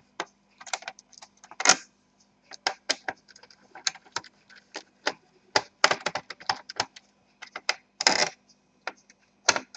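Small screwdriver taking out the screws under the keyboard of an Asus X54H laptop: irregular light clicks and ticks of metal on screws and the plastic case, with a few short metallic rattles of small screws being lifted out and set down.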